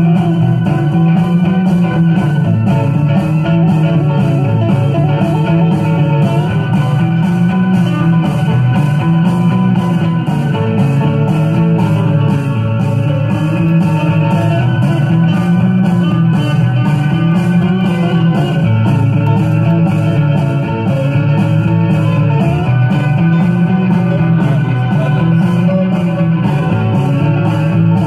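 A 1960s rock single played from a 45 rpm vinyl record on a turntable: electric guitar over a bass line that repeats about every two seconds.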